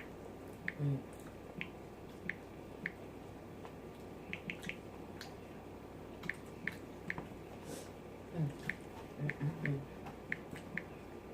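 Close-miked eating sounds: sharp, wet mouth smacks and chewing clicks at irregular intervals. A few brief low voiced sounds come about three-quarters of the way through.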